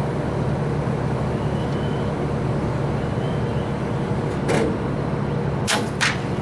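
Steady low mechanical hum, like an idling engine, with a sharp crack about four and a half seconds in and two more close together near the end.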